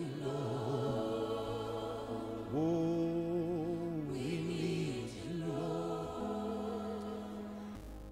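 Slow worship song: voices holding long, slightly wavering notes over a steady sustained accompaniment.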